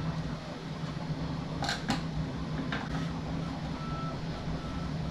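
A few short clicks and knocks of the wall art's metal parts being handled during assembly, over a steady low hum.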